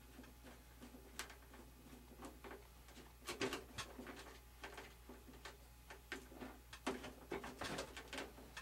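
Irregular light clicks, taps and knocks of hands handling and fitting parts on a model biplane's wing, busiest about three seconds in and again near the end, over a faint steady hum.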